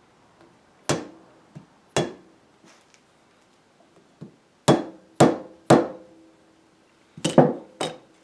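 Mallet blows driving a veneer-shimmed wooden handle into the socket of a Dansk Kobenstyle enamel saucepan, to make the loose handle a tight fit. There are about eight sharp taps: two about a second apart, three quick ones in the middle and a quick cluster near the end, with a faint ring after the blows.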